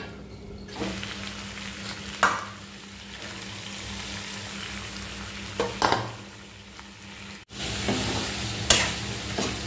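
Food frying and sizzling in a steel wok, stirred with a metal spatula that clacks against the pan a few times. The sizzling is louder for the last two seconds.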